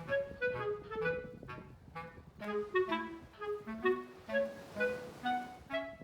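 Background music: a light, bouncy tune of short notes, about two to three a second, over a lower bass line.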